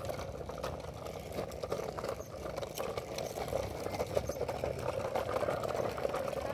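Hard plastic wheels of a toddler's ride-on toy rolling over rough asphalt: a steady rumble with many small clicks.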